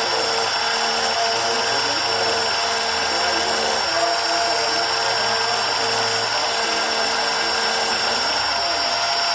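CNC engraving machine cutting copper: a steady high-pitched spindle whine over a hiss, with lower motor tones that keep changing pitch as the machine moves.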